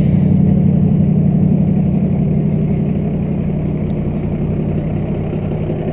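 Heavy vehicle engine running steadily during a winch-out recovery of a mud-stuck bus, its level easing down slowly.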